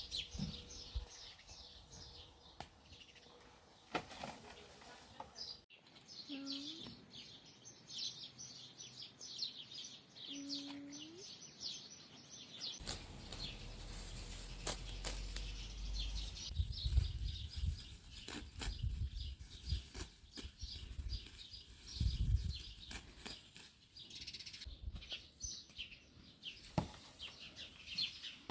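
Small birds chirping in quick, continuous runs. From about halfway, low rumbling and scattered knocks and rustles of close handling come in underneath.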